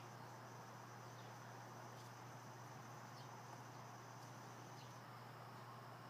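Faint crickets trilling steadily in one high, unbroken note over a low steady hum, with a few faint short downward chirps.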